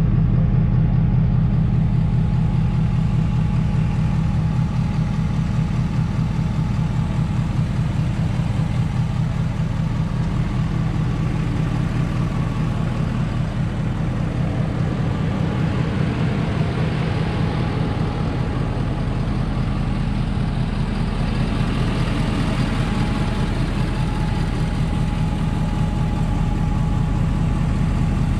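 Ford 6.7-litre Power Stroke V8 turbodiesel idling steadily with an even low pulse, and a faint steady whine above it.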